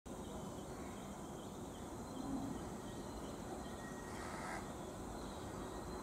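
Low steady rumble of a distant approaching electric freight train, under a bird chirping repeatedly, with a brief hiss-like burst about four seconds in.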